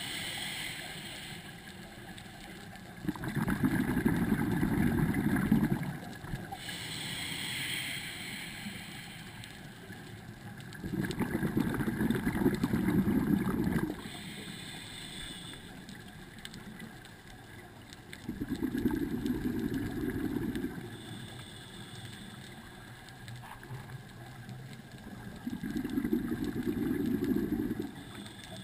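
Scuba regulator breathing underwater: four loud bubbling exhalations, each about two to three seconds long and some seven seconds apart, with a fainter hissing inhalation between them.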